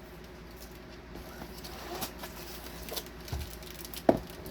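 Handling noise from a diamond painting kit being moved about: soft taps and rustles, with one sharper knock about four seconds in.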